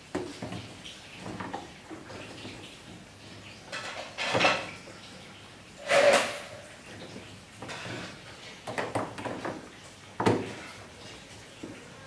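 Clatter and knocks of hard parts and tools being handled, with three louder clanks about four, six and ten seconds in; the one near six seconds rings briefly.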